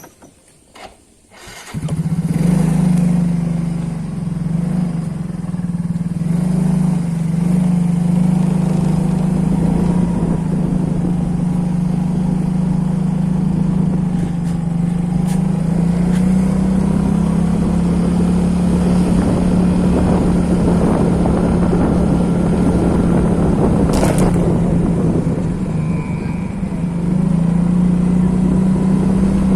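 Motorcycle engine starting up about two seconds in and then running at a steady pitch, with a sharp click near the end.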